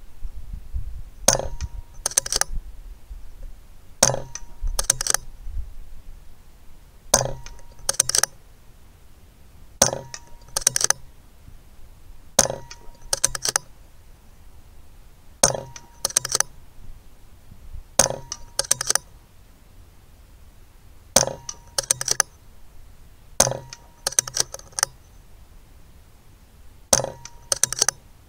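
A string of about ten shots from a shrouded PCP air rifle, the Daystate Delta Wolf, one every two to three seconds. Each sharp report is followed about a second later by a quick cluster of clicks as the action is cycled for the next pellet.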